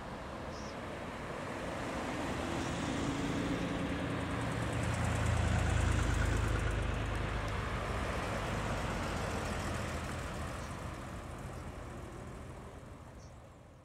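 Porsche 911 flat-six engines running at low speed as the cars drive slowly past one after another. The engine note swells to its loudest about halfway through and then fades as they pull away.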